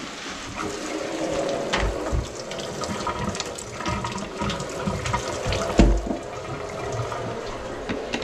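Water running into a kitchen sink and flowing down a drain just cleared of grease with a drum auger, with scattered knocks and clatter from handling the auger.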